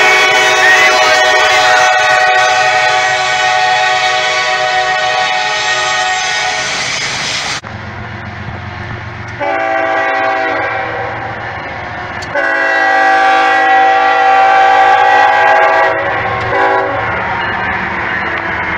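Diesel locomotive's multi-chime air horn sounding a long chord that cuts off abruptly about seven and a half seconds in. The horn then sounds two more blasts, the second louder and longer, over a low rumble.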